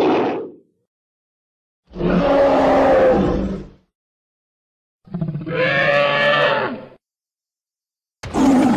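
Film dragon roar sound effects played one after another: two full roars of about two seconds each, with a short one starting near the end, separated by dead silence.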